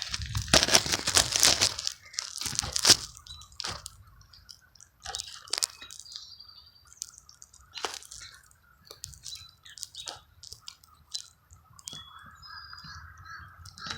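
Crunching and crackling noises, heaviest in the first three seconds, then thinning to scattered sharp clicks, with a few short, high bird chirps.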